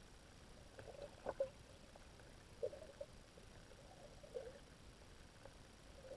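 Underwater sound in a shallow seagrass bed: faint scattered clicks and short low pops, the loudest pair about a second and a half in.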